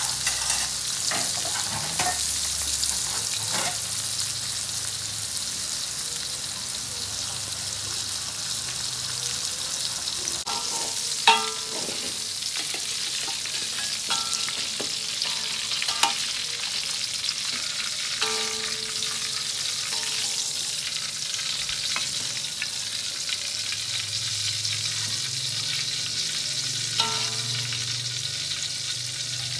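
Oil sizzling steadily as red chilies, tomato wedges, shallots and garlic fry in a steel wok. A metal spatula and a slotted skimmer scrape and knock against the wok several times, each knock ringing briefly, the sharpest about eleven seconds in.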